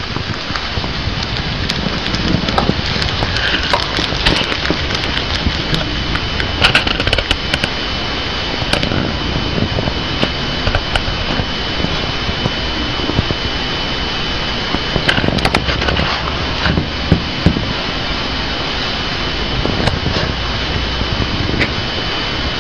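Syrian hamster chewing a leafy green vegetable close up: scattered crisp crunching clicks over a loud steady hiss, with a thin steady high tone.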